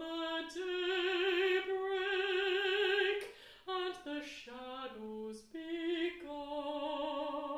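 Unaccompanied mezzo-soprano singing with vibrato. She holds one long note through the first half, breathes, then sings a few shorter notes and settles on another held, slightly lower note near the end.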